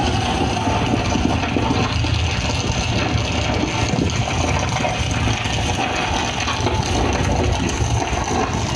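Steady rushing, rumbling noise with a heavy low end: a landslide sound effect played through the stage loudspeakers.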